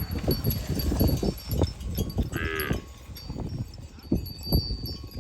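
Cattle bells ringing and clanking among irregular knocks and thumps of cows moving, with one short, high call from a cow about two and a half seconds in.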